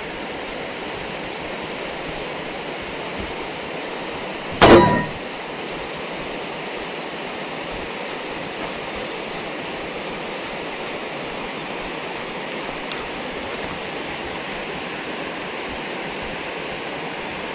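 A steady hiss of outdoor background noise, with one short, loud, ringing metallic clang about four and a half seconds in.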